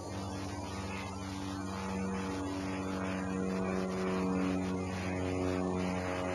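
A motor engine running steadily, its pitch shifting slightly up and down.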